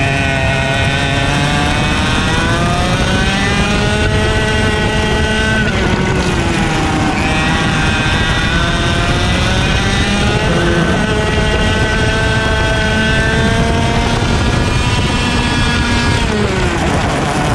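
IAME X30 125cc single-cylinder two-stroke kart engine at full throttle, heard from on board. Its note climbs steadily on each straight and drops sharply three times as the throttle is lifted for corners.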